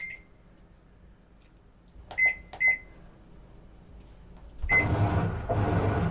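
Washing machine control panel beeping as its buttons are pressed: one beep, then two quick beeps, then one more. About two-thirds of the way in, the machine starts up and runs with a steady hum.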